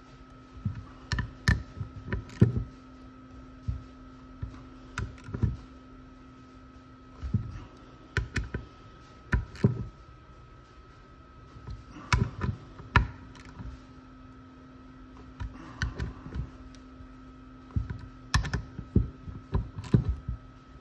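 Hand tools clicking and knocking against metal in short irregular bursts as the bolts on a BMW VANOS unit are tightened down, over a steady faint hum.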